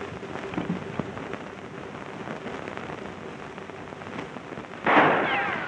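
Steady hiss, then about five seconds in a sudden loud burst of noise that fades over about a second.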